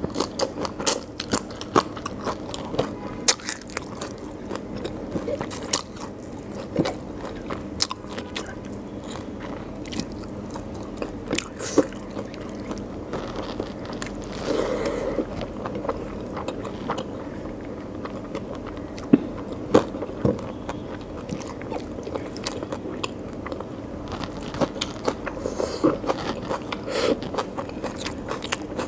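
Close-miked chewing of a mouthful of rice and curry eaten by hand, with many sharp mouth clicks and smacks scattered throughout.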